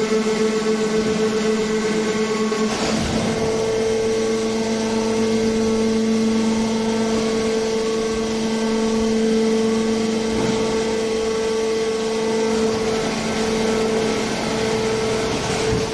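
Hydraulic car baler's power unit running with a steady hum, with a brief rush of noise about three seconds in.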